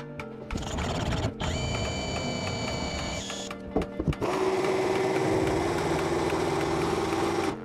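A cordless drill whines for about three seconds as it bores a starter hole in a white-coated board. After a short break with a few knocks, an electric jigsaw runs steadily as it cuts out a marked circle.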